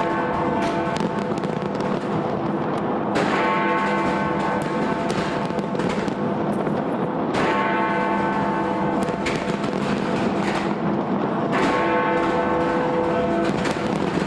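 Big Ben, the Great Bell in the Westminster clock tower, striking midnight: three strokes about four seconds apart, each ringing on and slowly fading. A fireworks display bangs and crackles over it the whole time.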